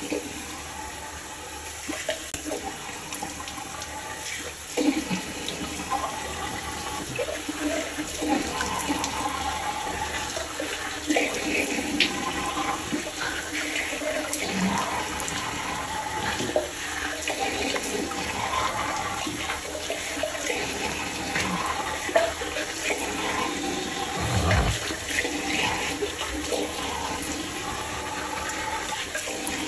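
Bathroom tap running into a sink, with irregular splashing as cupped hands throw water onto the face to rinse off foaming cleanser.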